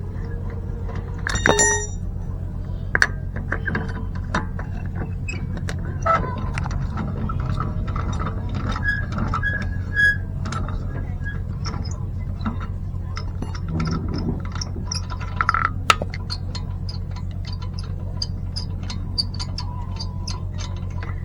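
Scattered sharp clicks and metallic knocks of hand-tool work on a disc brake, over a steady low hum.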